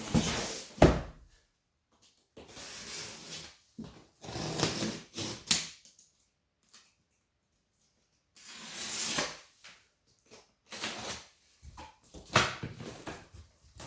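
A cardboard shipping box being handled: bursts of scraping and rustling with sharp knocks, broken by short pauses.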